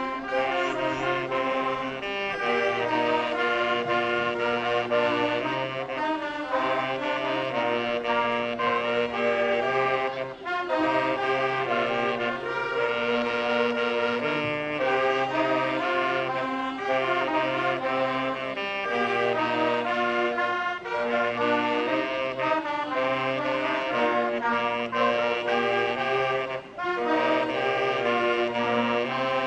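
Saxophone ensemble of alto and tenor saxophones playing a tune in close harmony over a low held bass part, in phrases with two brief breaks between them.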